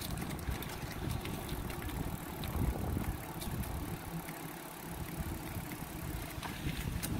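Bicycle riding over a concrete path: tyre rumble mixed with wind buffeting the microphone, with a few light clicks from the bike.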